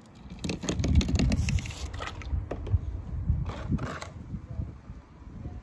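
Small toy car pushed by hand over a bumpy track of wooden blocks and sticks, its wheels clattering and scraping, starting about half a second in, with a second burst of clatter near the end.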